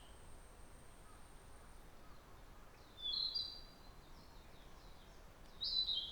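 A songbird singing short phrases of high, clear notes that step down in pitch, twice: once about three seconds in and again near the end. A thin, very high steady whine fades out in the first two seconds, over a faint, even background hiss of the mountain outdoors.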